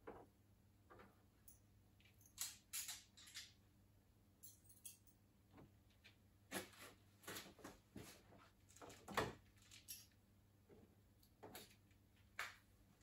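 Scattered small clicks, rustles and light clatter of hand tools and small parts being handled, with the sharpest click about nine seconds in.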